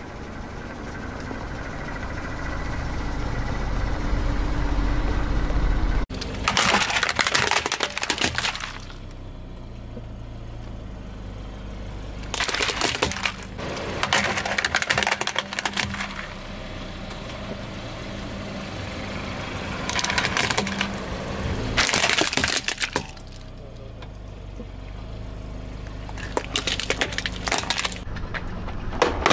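A car's tyre rolling over plastic toy figures, which crack and crunch as they break, in about six separate bursts after the first six seconds. Before that, a low hum from the car slowly grows louder.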